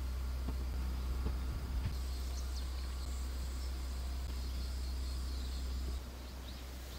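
Outdoor ambience: a steady low rumble that drops off about six seconds in, with a few faint, short high chirps from birds or insects.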